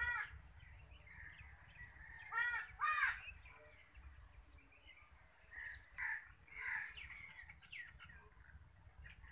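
Crows cawing: one call at the start, two close together about two and a half seconds in, and a few more around six to seven seconds in, with fainter bird calls between.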